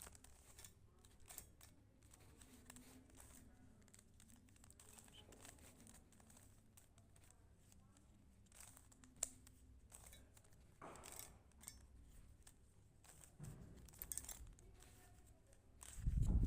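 Faint, scattered plastic clicks and rustles of a Rubik's cube being twisted by hand, with one sharper click about nine seconds in and a dull thump near the end.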